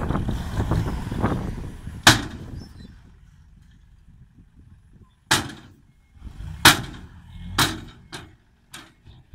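Six-wheel dump truck unloading soil: a low rumble of the engine and sliding soil, then one sharp metallic bang about two seconds in. In the second half come several more sharp bangs, unevenly spaced, as the tipper bed comes down and its hinged tailgate slams against the body.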